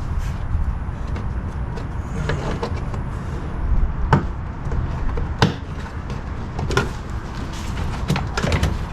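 Plastic push clips being pried out of a car's wheel-well trim: a few sharp clicks and snaps, with a small cluster near the end, over a steady low rumble.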